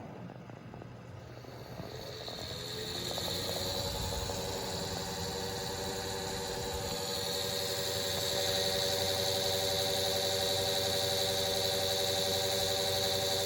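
Computer fan spinning up, growing louder over the first few seconds, then running steadily with a hum and a higher whine. It is a PC fan making unwanted running noise.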